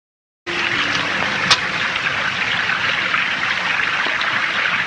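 A steady rushing noise starts about half a second in, with a single sharp click about a second later.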